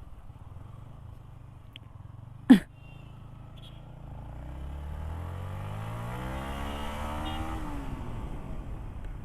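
Yamaha MT-15's single-cylinder engine pulling away. It runs low at first, then its note climbs steadily from about four seconds in as the bike accelerates, and drops near the end as the throttle is eased off. A short sharp sound comes about two and a half seconds in.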